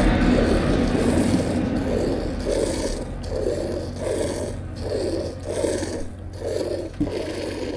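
Water buffalo being milked by hand: short, regular squirts of milk into a pail, about two a second. A low hum fades out over the first couple of seconds.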